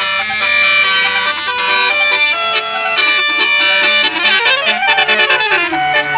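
A bus's basuri melody horn, a set of tuned air-horn trumpets, plays a tune in held notes with several tones sounding together. About four seconds in, it sweeps up and back down like a siren.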